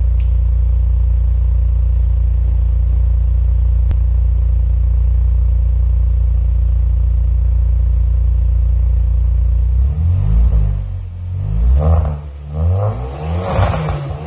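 Turbocharged 2.0-litre four-cylinder of a 2015 Kia Optima 2.0T, running a LAP3 tune with full bolt-ons, idling steadily through its exhaust. About ten seconds in it is revved in several quick blips, the pitch rising and falling each time.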